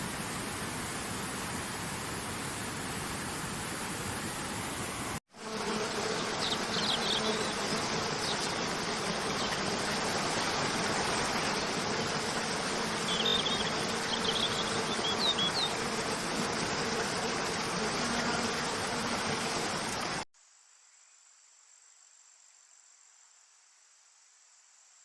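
Nature ambience in three cut sections: a steady rushing like falling water, then louder rushing water with short high bird chirps, and near the end a faint, steady, high-pitched chirring of crickets.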